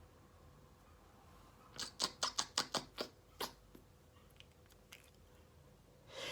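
A quick run of about eight short, sharp sniffs through the nose during an allergy sneezing fit, about two seconds in. Near the end a breath is drawn in as the next sneeze builds.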